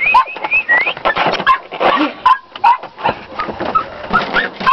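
A litter of American Bulldog puppies yipping and whining together: many short, high calls in quick succession and overlapping, some sliding up or down in pitch.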